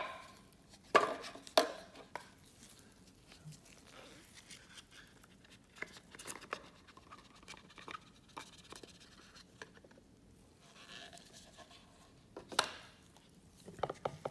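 Packaging of a sealed trading-card box being opened by hand: sharp snaps as the security band gives, then light crinkling and handling of cardboard and wrapping, with another loud snap about two seconds before the end and a rapid run of ticks right at the end.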